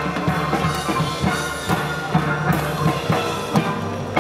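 Steel pan band playing live: struck, pitched pan notes ringing over a low bass line and a steady percussive beat.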